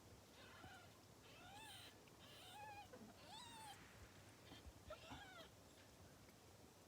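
Ten-day-old Scottish kittens mewing: about five short, high, thin mews, each rising and then falling in pitch.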